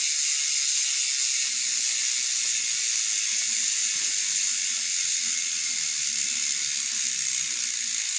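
GUB bicycle hub freewheeling, its pawls ratcheting over the teeth in a fast, steady, high-pitched buzz of clicks. Sounding good after six months with stainless springs.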